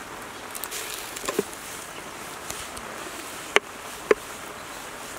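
Winged termites roasting in a clay pot with a steady hiss and light crackle as they are stirred with a wooden ladle. Two sharp knocks of the ladle against the pot come in the second half.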